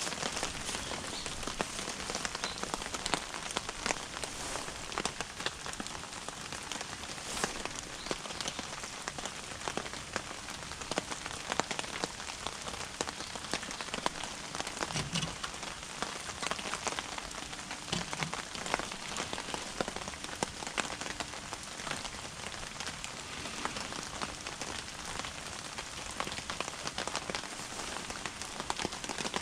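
Steady rain falling close by, many separate drops ticking densely and evenly on nearby surfaces.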